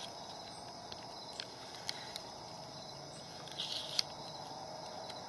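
Crickets chirping steadily in the background, with a few faint clicks and a short scuffle and click about four seconds in as the lawnmower's spring-loaded recoil starter pulley is wound by hand.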